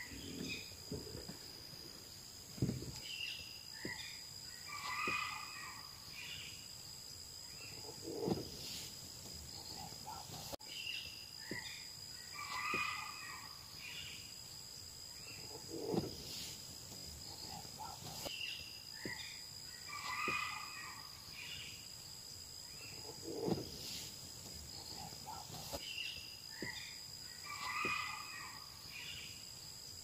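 Forest ambience: a steady high-pitched insect drone, with a bird calling a short phrase of chirps about every seven or eight seconds. A soft low thump comes now and then.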